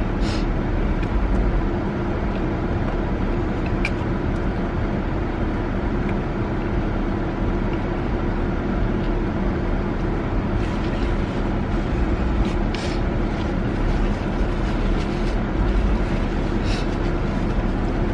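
Steady hum inside a car with the engine running, with a few brief clicks.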